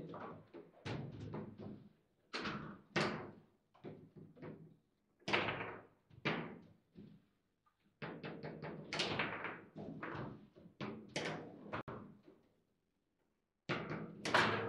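Table football play: rapid, irregular knocks and clacks of the ball striking the plastic player figures and table walls, with rods rattling and thudding. The impacts come in bursts, stop for about a second and a half near the end, then resume with a loud cluster.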